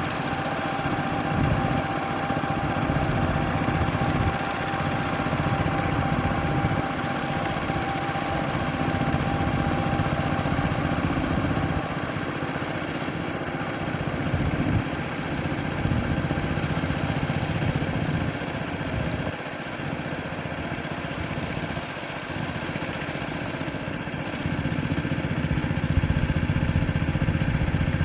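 Tractor engine running steadily under way, dipping a little in level for several seconds and growing louder again near the end.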